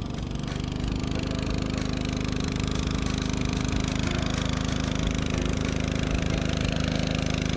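Small boat motor on a wooden canoe running steadily at a constant speed, a low hum with a fast even pulse.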